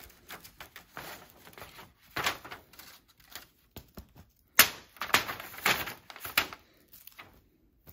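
Irregular rustling and crinkling of a folded paper map as a cat paws at it and a feather wand toy, with sharp crackles, the loudest about four and a half seconds in.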